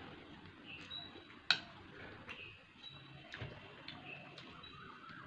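Eating sounds of someone eating rice with the hand: scattered wet clicks and smacks of chewing and fingers on the plate, with one sharper click about one and a half seconds in.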